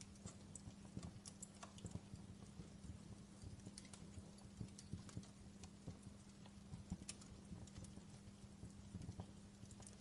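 Faint wood fire crackling, with irregular small pops and snaps at uneven intervals over a steady low hum.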